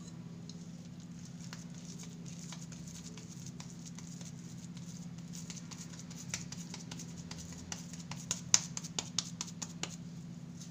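Hands shaping chicken-and-potato cutlet mixture, with soft scattered pats that build near the end into a quick run of sharp slaps as the ball is pressed flat between the palms. A steady low hum runs underneath.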